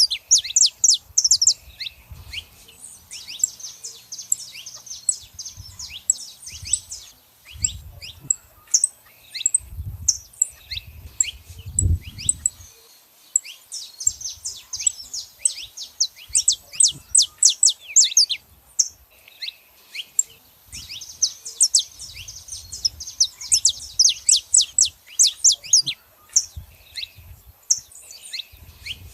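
Saffron finches, a male and female pair, chirping: quick runs of sharp high notes that sweep downward, coming in busy bursts with short gaps. A few low thumps come in the middle.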